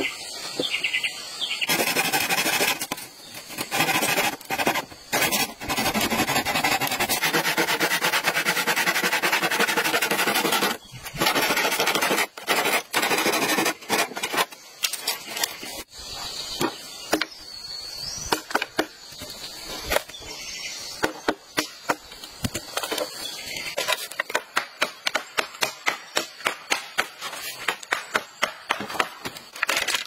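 Repeated sharp chopping and knocking blows on wood and bamboo, with a machete cutting bamboo poles. Near the end the blows come fast and regular, about two or three a second.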